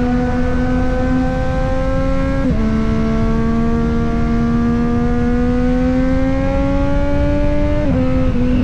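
Triumph Street Triple 765 RS inline three-cylinder engine and exhaust under way, its pitch climbing slowly as the bike accelerates in gear, dropping sharply about two and a half seconds in at an upshift, then climbing again before dipping near the end. Wind rush runs underneath.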